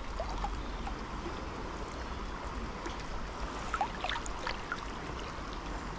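River current flowing steadily past, a continuous rushing burble of a shallow trout stream running around the wading angler.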